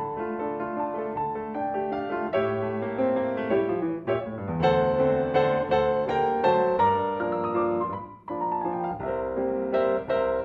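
Solo grand piano playing a quick passage of many notes, with a brief break about eight seconds in before the playing resumes.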